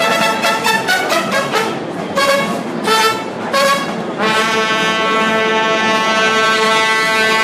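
Mariachi band of violins, trumpets, vihuela, guitar and guitarrón playing: quick repeated chords, a few accented hits, then from about four seconds in one long held chord that ends the piece.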